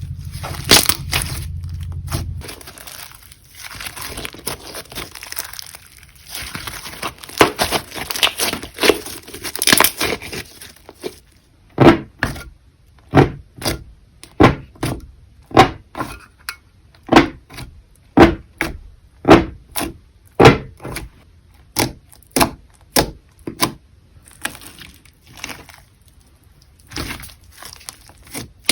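Clear slime with eyeshadow and lipstick mixed in, being squeezed and pressed by hand, crackling and popping as air pockets burst. From about twelve seconds in, the pops come in a regular run, about two a second. A low steady hum is heard for the first two seconds.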